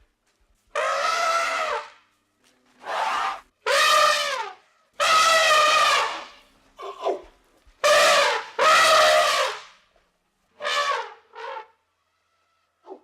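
African elephant trumpeting: a series of loud, brassy trumpet calls, each about half a second to a second long, separated by short silences.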